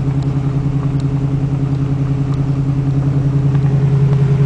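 Truck engine running at a steady speed, a low even drone heard from inside a pickup's cab.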